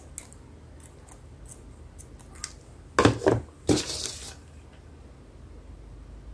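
Light clicks and taps from handling ribbon and a small cardboard craft piece on a tabletop, then, about three seconds in, a louder burst of handling: a couple of knocks followed by a short rustling scrape.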